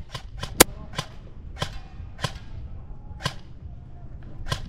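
Airsoft gunfire: about eight sharp snaps at irregular intervals, the loudest and sharpest about half a second in, the rest fainter.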